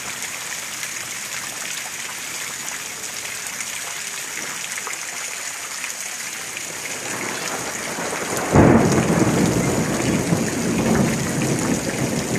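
Heavy rain falling steadily, then a sudden loud clap of thunder about two-thirds of the way through that rolls on as a deep rumble to the end.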